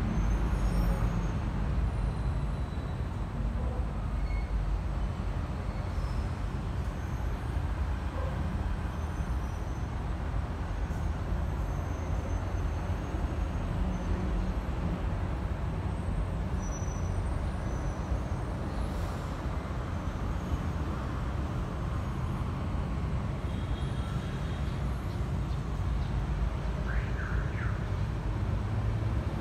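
A vehicle engine running with a steady low rumble that holds unchanged throughout.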